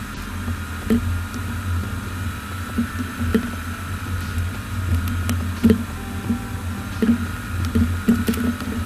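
Small clicks and light taps of metal tweezers and a spudger handling smartphone parts, scattered irregularly over a steady hum.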